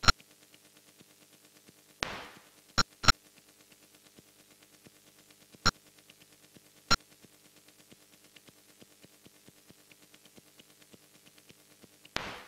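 Sparse electronic glitch soundtrack: sharp digital clicks, some in quick pairs, and two short hissing noise bursts that fade away, over a faint low drone with a fast, soft ticking pulse.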